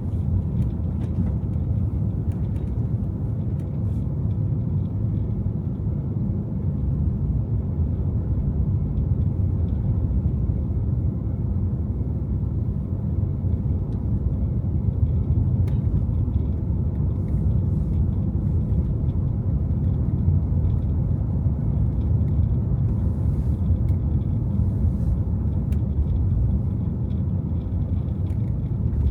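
Car driving through city streets: a steady low rumble of engine and tyre noise, with a few faint clicks.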